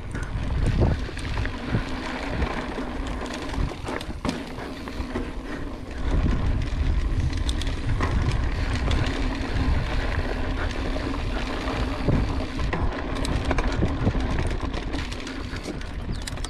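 Mountain bike ridden over a dirt course: tyres rolling on dirt, with the bike knocking and rattling over bumps, and wind rumbling on the microphone. The noise gets louder about six seconds in.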